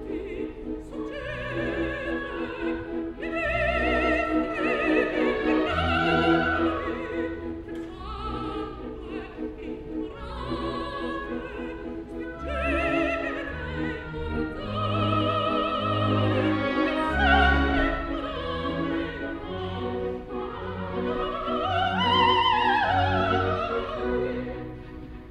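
Operatic soprano singing an aria with a strong vibrato over a full orchestra, her line falling in a long phrase near the end.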